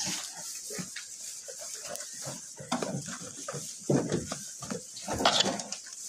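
Goats feeding at a hay feeder: dry hay rustling and being pulled and munched in short crackles, with two louder short goat noises about four and five seconds in.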